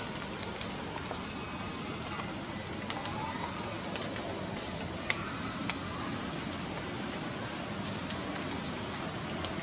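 Steady outdoor background noise, like a hiss, with a few sharp clicks near the middle and several faint, brief high chirps.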